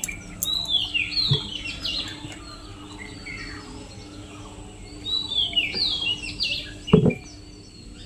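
A bird chirping in quick runs of falling notes, in two bursts, over a low steady hum; a single dull knock near the end.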